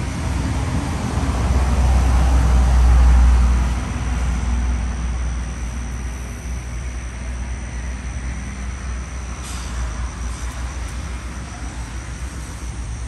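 Low rumble of a heavy road vehicle passing close by, swelling over the first few seconds and easing off after about four seconds, with road noise carrying on underneath.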